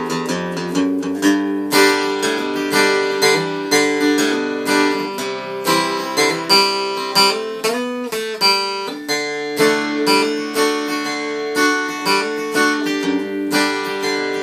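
Acoustic guitar played solo in an instrumental break between sung verses: a steady run of picked and strummed notes over the bass strings, with one note slid upward about eight seconds in.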